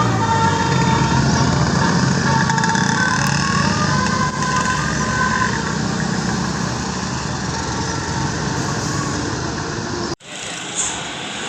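A bus's diesel engine running loudly and steadily, with a few faint held tones over it. It cuts off abruptly about ten seconds in, and a quieter engine sound follows.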